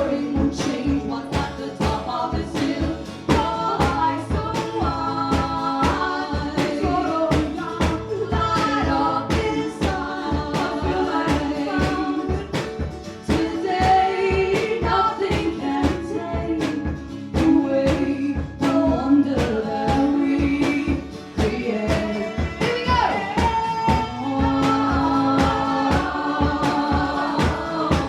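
Live song with strummed acoustic guitars keeping a steady beat and several voices singing together.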